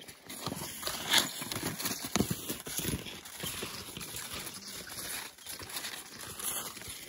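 Footsteps crunching in snow as a person walks uphill, a string of uneven crunches with the loudest about a second and two seconds in.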